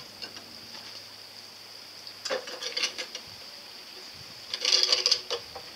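Small plastic toy kayak scraping and knocking against a concrete ledge as it is hauled out of the water, in two short rasping bursts with a squeak in them, the second louder.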